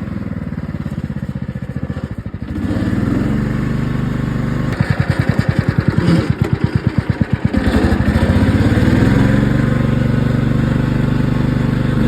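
Riding lawn mower's small engine running, its note rising about two and a half seconds in, dropping to a slow, even chugging around five seconds in, then revving up again near eight seconds.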